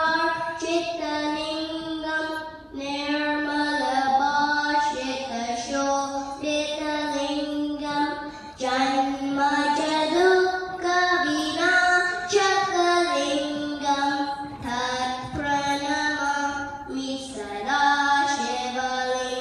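A boy singing a classical song into a microphone, in long phrases with held notes and short pauses for breath.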